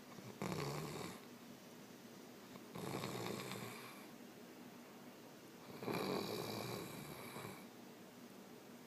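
A man snoring in his sleep: three snores about three seconds apart, each a second or more long.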